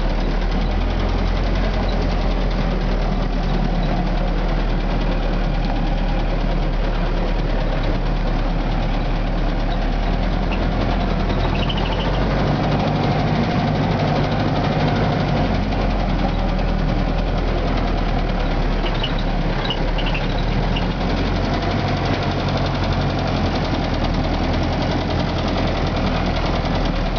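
Steyr-Puch Pinzgauer off-road vehicle's engine and drivetrain running steadily while driving, heard from inside its canvas-topped cabin. The engine note changes pitch a few times.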